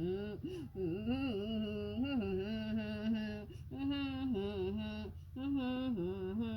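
A person humming a slow tune in long, smoothly gliding held notes, with short pauses between phrases.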